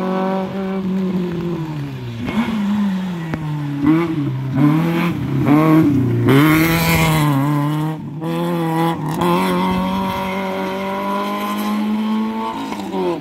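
Rally car's engine taking a hairpin: the engine note falls as it slows for the bend, wavers with short stabs of throttle through the turn, then rises steadily as it accelerates away. A rush of tyre noise on the wet tarmac comes as it passes closest.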